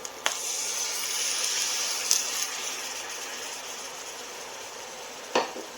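Heavy cream sizzling as it hits eggs frying in hot olive oil in a skillet, a hissing sizzle that slowly dies down over a few seconds. A short knock near the end.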